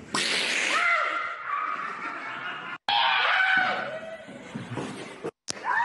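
A person screaming in fright at a prank scare: long high-pitched screams that rise and fall, broken twice by sudden cuts in the sound.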